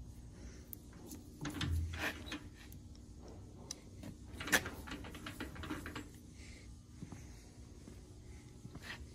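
Scattered light clicks and knocks, with a low thump about two seconds in and a sharper click about halfway through, over a faint steady hum: footsteps and handling noise around an idle lathe.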